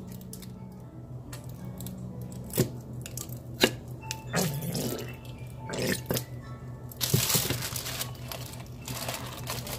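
Barbecue sauce squeezed from a bottle onto raw chicken in wet squirts and drips, with a few sharp clicks. About seven seconds in, the plastic slow-cooker liner rustles as hands start working the chicken.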